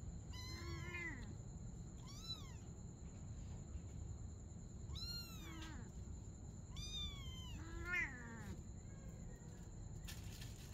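Young kittens mewing: about five short, high-pitched mews spread through a few seconds, each rising and then falling in pitch.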